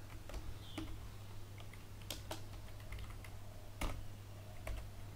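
Sparse computer keyboard keystrokes, a handful of short clicks with a few sharper ones around two seconds in and near four seconds, over a low steady hum.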